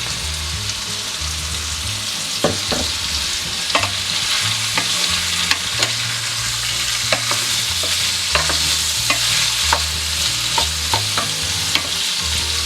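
Sliced chicken sausage, zucchini, red bell pepper and onion sizzling in olive oil in a frying pan, with a steady hiss. A utensil clicks against the pan at irregular moments, about once or twice a second, as the food is stirred.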